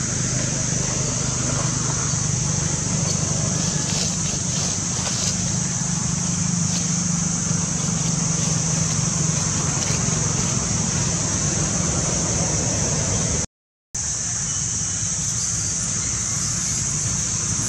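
Steady outdoor ambience: a continuous high-pitched drone over a low hum, broken by a brief total dropout about two-thirds of the way through.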